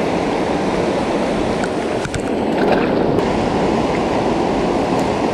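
Rushing river current: a steady, loud wash of flowing water.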